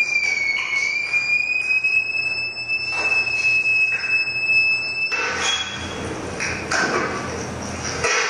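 Theremin holding a high, whistle-like tone that glides slowly upward, then levels off and cuts off suddenly about five seconds in. Irregular rustling noise follows.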